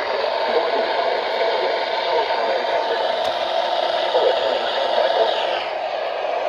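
Steady, loud hiss of radio static from a NOAA Weather Radio receiver, with no voice coming through.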